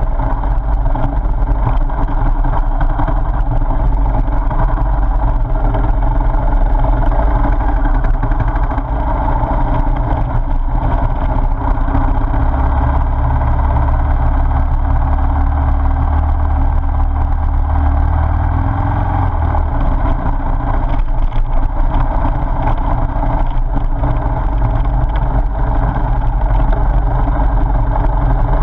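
Motorcycle engine running as the bike rides along a gravel road, mixed with wind and road rumble on the bike-mounted camera, with a deeper rumble for several seconds in the middle.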